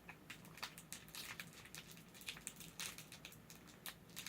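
Faint, irregular small clicks and crinkles of a candy wrapper being handled and opened.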